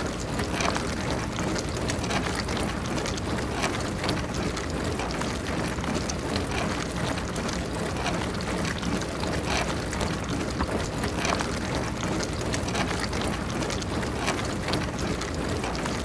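Dishwasher spray arms rotating and spraying water inside the tub, a steady rush with a faint patter of droplets: the normal sound of a wash cycle.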